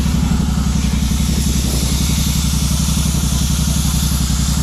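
A machine running steadily with an even, low, rapidly pulsing drone.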